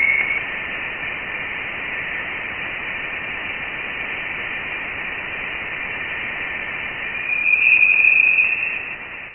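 Steady hiss like radio static, thin and bright with nothing above a sharp upper cut-off. It is offered as a sound from space. It swells louder about seven seconds in, then stops abruptly.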